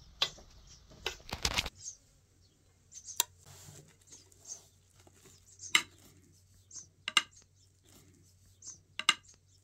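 Metal spoon clinking against a ceramic plate as it cuts into stuffed grape-leaf dolmas: a few sharp clinks a second or two apart. About a second in there is a short, louder clatter.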